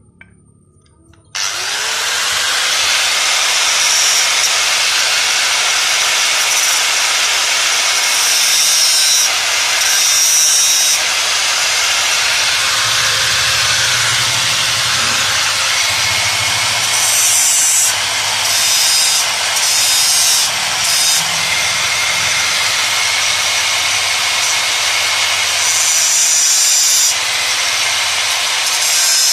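Handheld electric angle grinder switched on about a second and a half in, spinning up, then running steadily while grinding the end of a 6 mm steel rod, its sound dipping and changing briefly a few times as the disc works the metal.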